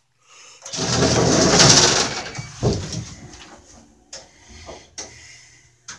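Old elevator's hoist machinery starting after a car button is pressed: a loud rushing whir about a second in that fades off, then a low steady motor hum with a few sharp relay clicks as the car runs.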